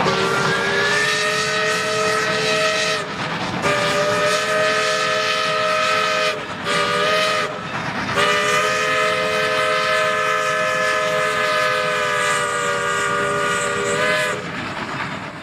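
Norfolk & Western No. 382's steam locomotive chime whistle sounds a long blast, a second long blast, a short one and a final long one, the grade-crossing signal. It sounds as several tones at once over a steady rushing noise.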